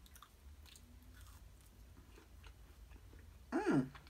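A person chewing a mouthful of fried chicken nugget with the mouth closed: faint soft crunches and wet mouth clicks. Near the end comes a short hummed voice sound that falls in pitch.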